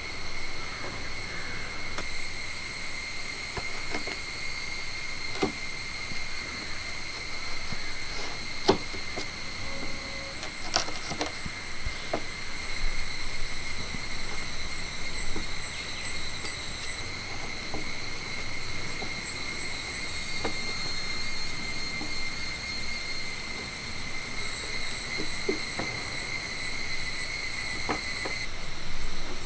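A large knife pressing down through a slab of set peanut-jaggery candy, with scattered soft knocks of the blade on the wooden board beneath. Over it runs a steady, high-pitched drone of insects.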